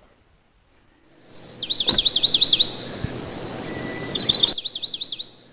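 A songbird singing: a high held note, then a quick run of about six repeated sweeping notes, and a second similar phrase, over faint outdoor background noise. The sound cuts off suddenly.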